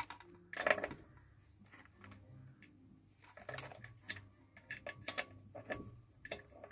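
Scattered light clicks and taps, several in quick pairs, over a faint low hum.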